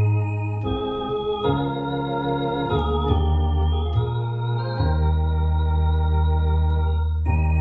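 Two-manual electronic organ playing a slow hymn in sustained chords over a held bass note, the chords changing about once a second.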